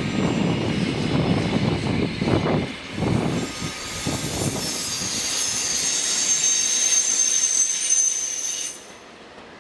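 Train moving through a railway station: a low rumble with wheel knocks, giving way to a high-pitched whine and hiss that cuts off sharply about a second before the end.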